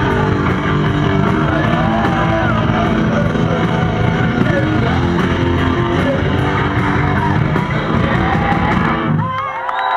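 Live punk rock band playing loud: distorted electric guitars through Marshall amps, drums and shouted vocals. The song ends about nine seconds in, and the crowd starts cheering and shouting.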